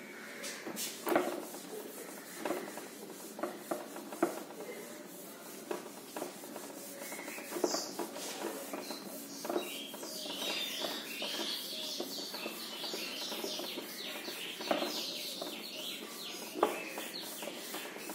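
Whiteboard being wiped clean: repeated rubbing strokes across the board, with a few sharper knocks. A high chirping sound joins in from about ten seconds in.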